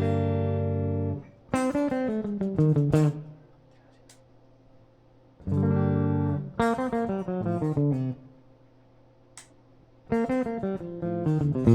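Ibanez AZ24S electric guitar being played: a chord rings out, then a quick run of single notes, a pause, and the same chord-and-run phrase again, with a third run starting near the end.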